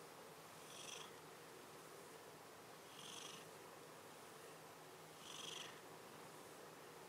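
A tabby cat purring faintly as it is stroked on the head, with a soft hissy swell about every two seconds.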